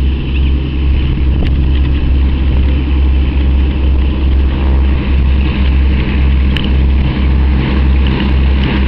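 Beechcraft B55 Baron's twin six-cylinder piston engines running at taxi power with propellers turning: a steady low drone that pulses at a slow, even rate.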